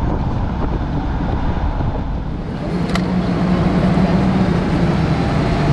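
Class C motorhome driving on the road: a steady low rumble of road and engine noise. A steady hum joins about halfway through, just after a single sharp click.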